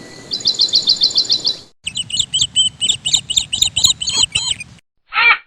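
Small birds chirping: a fast run of repeated high chirps, then after an abrupt cut a longer, more varied chirping song. A single short call sounds near the end.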